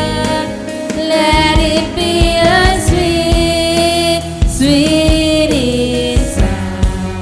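Worship music: a lead vocal singing long held notes over keyboard chords and a steady drum beat.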